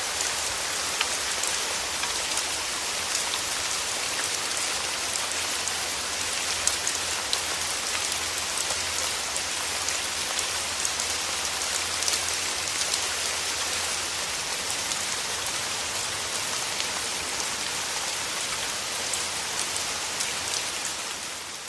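Steady rain falling on a hard surface: a dense, even patter of drops with small individual taps. It fades out near the end.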